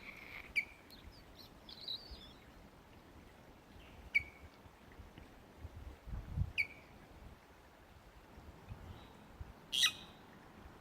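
A wren giving short, sharp chirps a few seconds apart, with a brief high twitter about two seconds in and a louder chirp near the end.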